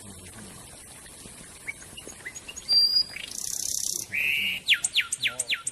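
Songbird singing in a loud, varied phrase: a few short chirps and a high whistle, a harsh hissing buzz, a short held note, then a rapid run of falling sweeping notes, about five a second.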